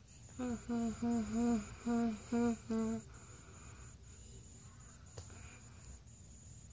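A girl humming with closed lips around a squishy toy held in her mouth: about seven short, muffled hummed notes in quick succession over the first three seconds, then only faint background hiss.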